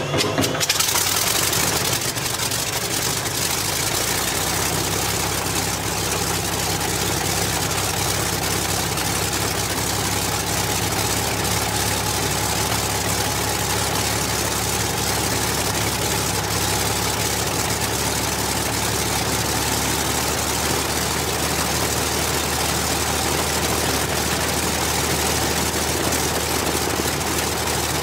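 One Rolls-Royce Merlin V-12 of a de Havilland Mosquito running at a steady idle while the aircraft's other engine is stopped. It is a little louder in the first second, then holds an even, deep engine note with propeller and exhaust noise.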